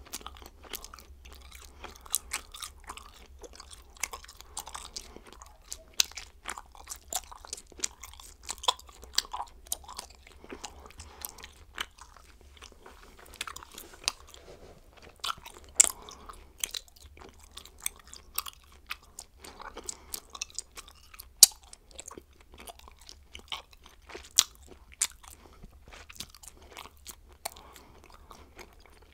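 Bubblegum being chewed, with many irregular sharp clicks and smacks throughout.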